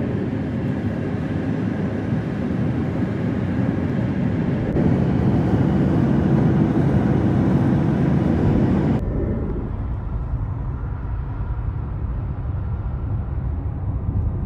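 A car driving at highway speed: steady road and tyre rumble with wind noise. About nine seconds in, the sound changes abruptly and the hiss drops away, leaving a duller rumble.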